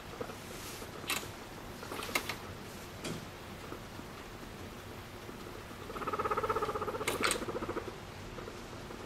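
Abyssinian guinea pig purring while being stroked: a rapid, rattling 'kururu' trill about six seconds in that lasts about two seconds, the contented sound of a guinea pig enjoying petting. A few short crackling clicks come before it.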